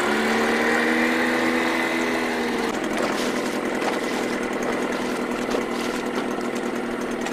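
Small outboard motor running steadily at low revs close by, just after being throttled back.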